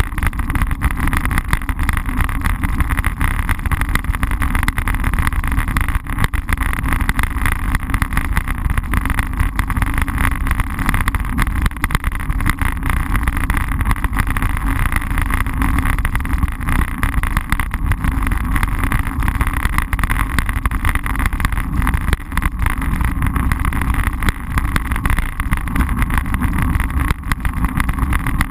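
Road noise from a bicycle rolling over rough asphalt, picked up through a handlebar-mounted GoPro Hero: a loud, steady rumble with many small rattling knocks from vibration.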